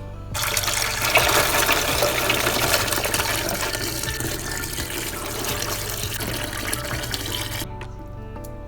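Water running steadily from a kitchen tap, turned on just after the start and shut off suddenly near the end.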